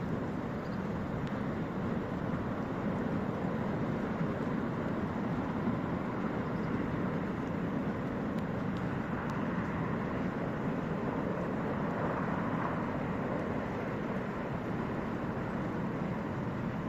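Flooded mountain stream in spate: a steady, loud rush of fast-moving floodwater.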